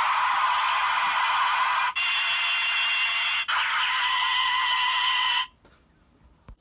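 Electronic sound effects and a synthesized jingle from a Z-Riser transformation toy's small speaker, played after it announces the scanned medals. It comes in three stretches with brief breaks and cuts off suddenly about five and a half seconds in.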